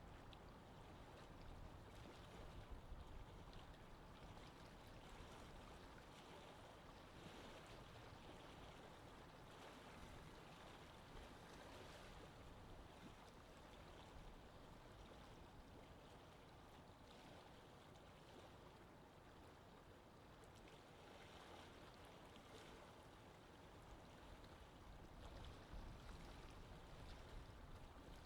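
Near silence: a faint, steady background noise with no distinct events.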